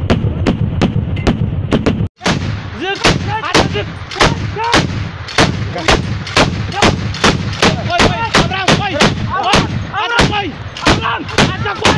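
Tripod-mounted machine gun firing repeated shots, about three a second, with a heavy low rumble. Just after two seconds the sound cuts out briefly, then gunfire resumes in an irregular string of shots, many followed by short whines that rise and fall in pitch.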